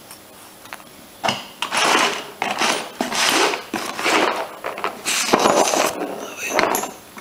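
Rustling and light clicks of small carburettor parts being handled and set down on a sheet of paper, a string of short noisy scrapes with a few sharp taps.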